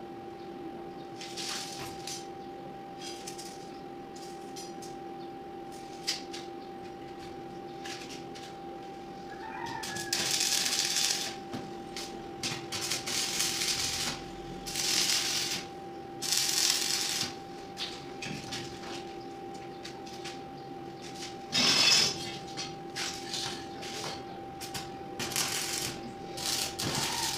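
Stick (arc) welding: about six short bursts of crackling arc as tack welds are struck on the corners of a steel window-grill frame, the first about a third of the way in and the loudest past the middle. Under them runs a steady hum, with a few light clicks of handling before the welding starts.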